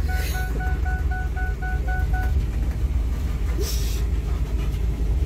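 Van cabin rumble from the engine and road while driving, with the vehicle's electronic warning chime beeping about four times a second until it stops about two seconds in. An Alaskan malamute's panting breaths sound close by now and then.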